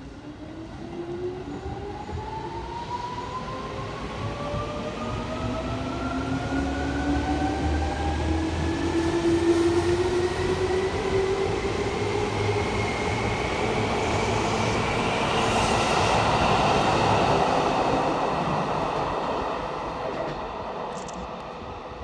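Seibu 2000-series electric commuter train pulling out and accelerating: its traction motors whine in several tones that climb steadily in pitch. Wheel-on-rail rumble builds as the cars run past, then fades near the end as the train draws away.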